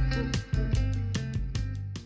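Background music: strummed guitar chords over bass with a steady, quick beat.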